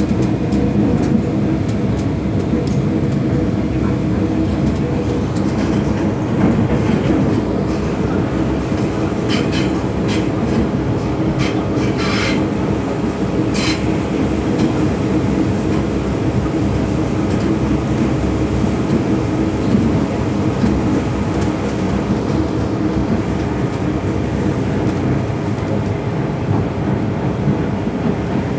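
MTR M-train running along the line, heard from inside the carriage: a steady rumble of wheels and running gear with a steady hum. A cluster of sharp clicks comes between about nine and fourteen seconds in.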